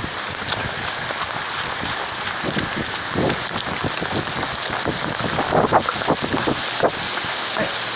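Heavy storm rain pouring down, a steady hiss with scattered sharp hits on surfaces, thicker around two thirds of the way through.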